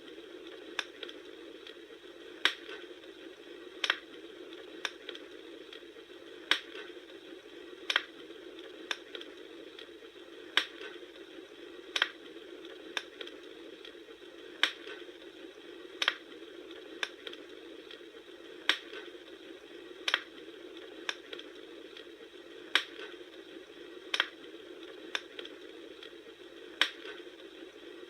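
Wood fire crackling: sharp pops and snaps roughly once a second over a steady, soft low hiss of burning.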